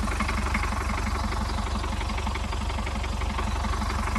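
Willys Jeep engine idling, a steady, even pulsing beat.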